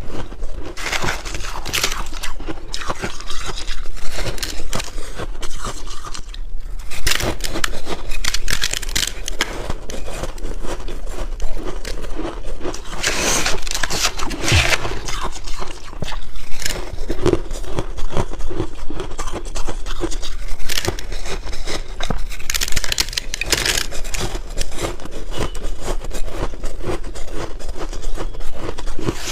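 A person biting and chewing crunchy white freezer-frost ice: a dense run of crisp crackling crunches, with a short lull about seven seconds in.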